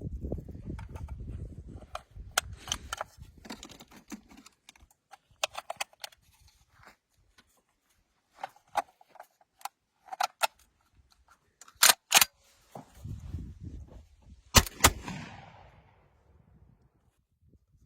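Bull-pup shotgun being handled and fired: scattered metallic clicks of the gun being worked, then loud shots about twelve seconds in and again about two and a half seconds later, the last trailing off in echo.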